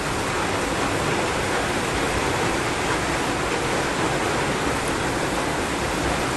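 A steady, even hiss with no other sound standing out.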